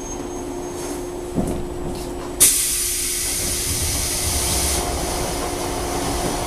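JR 103 series electric train with a steady hum, a short knock about a second and a half in, then a sudden loud hiss of compressed air from its pneumatic system. The hiss is strongest for about two seconds and then carries on more softly.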